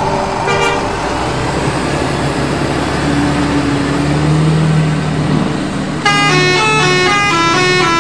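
Bus engine running with a short horn toot about half a second in; about six seconds in, a multi-tone basuri (telolet) bus horn starts playing a loud stepping tune.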